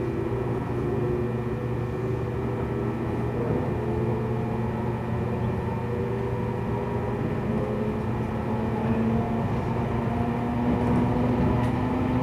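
A 415-series electric train running, heard from inside its motor car: the whine of its MT54 traction motors and gears over steady rail and running noise. The whine sinks slightly in pitch early on and climbs again over the last few seconds as speed changes.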